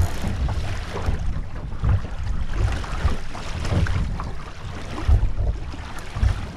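Wind buffeting the camera's microphone in uneven gusts, a low rumble with a rushing hiss over it, of the kind heard from a boat under way on open water.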